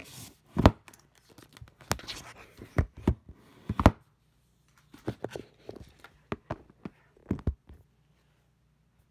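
Handling noise close to the phone's microphone: rustling and scattered knocks and thumps as a backpack is rummaged through and the phone is moved about. The sharpest knocks come about half a second in and about four seconds in, with stretches of quiet between.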